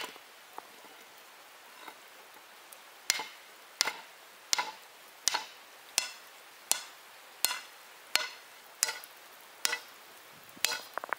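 Hand-held stone hammer striking hot iron stock on a stone anvil at a charcoal forge, each blow a sharp clink with a short metallic ring. After a pause of about three seconds the blows come steadily, about one every 0.7 seconds, and end in a quick flurry of lighter taps.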